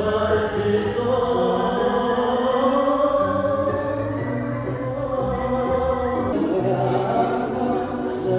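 Recorded tango music with a singing voice carrying long, sliding held notes over the accompaniment.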